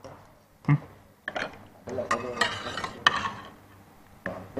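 Spoons clinking and scraping against bowls and a serving dish in scattered short knocks, with a brief lull near the end.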